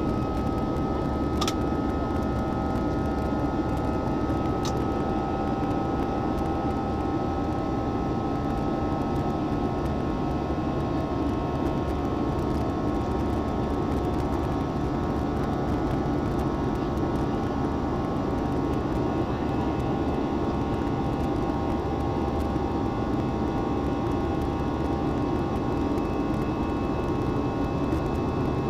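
Steady cabin noise of an Airbus A320-family airliner climbing after takeoff: the drone of its jet engines and rushing air, with a few steady whining tones over it. Two faint ticks in the first five seconds.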